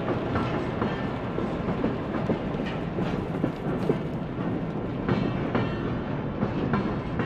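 1:29-scale model freight cars rolling along the track, a steady rumble with irregular clicks of the wheels over rail joints.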